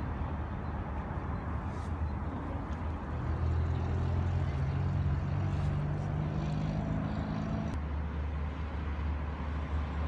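Low, steady engine drone, with a stronger pitched engine note that comes in about three seconds in and stops near eight seconds.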